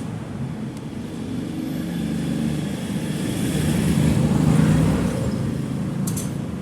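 A car engine running, growing louder to a peak about two-thirds of the way through, then easing off.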